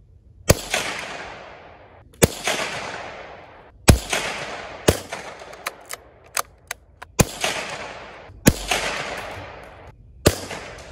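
Seven .22 rifle shots over about ten seconds, each a sharp crack trailing off over a second or so. A few faint clicks fall between the fourth and fifth shots.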